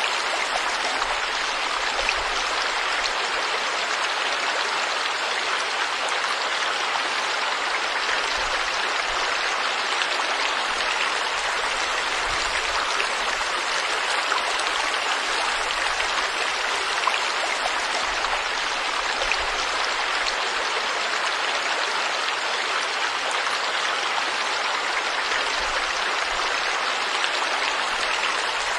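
Stream water flowing steadily over rocks, a dense rushing splash with small droplet ticks scattered through it.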